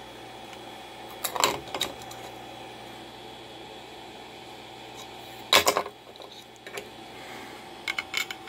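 Several short knocks and clicks of hard 3D-printed plastic parts being handled, in four brief clusters over a steady fan hum. The loudest knock comes about five and a half seconds in.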